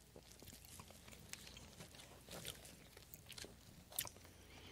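Near silence, with a few faint clicks and small mouth and handling sounds as the communion bread is eaten and the cup taken.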